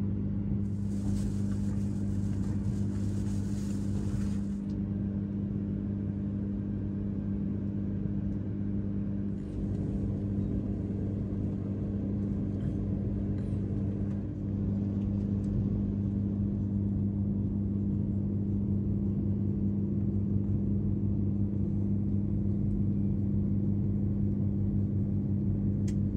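Running noise of a JR East E3 series Yamagata Shinkansen train heard from inside the passenger car: a steady low hum and drone from wheels and motors. A brief hiss rides over it about a second in, lasting some three seconds.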